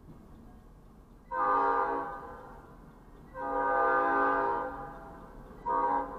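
Locomotive air horn sounding the grade-crossing signal: two long blasts and one short one, several chime notes sounding together in each blast.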